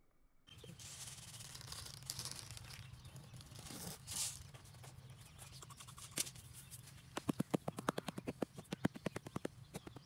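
Rustling and scraping from hands working dry soil and scattering grain, with a few sharp clicks, then a fast, even run of clicks, about eight a second, from about seven seconds in.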